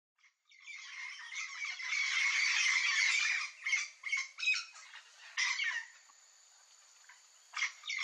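Yellow-faced parrots (Alipiopsitta xanthops) calling as a flock: a dense run of harsh squawks for the first few seconds, then separate squawks. The calling drops almost to nothing for a second and a half and starts again near the end.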